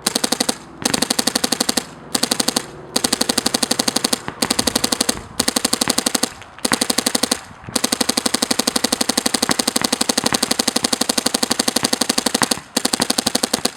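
Planet Eclipse Ego LV1 electronic paintball marker firing rapid strings of shots at a fast, even rate, broken by brief pauses into about nine strings, the longest running nearly five seconds.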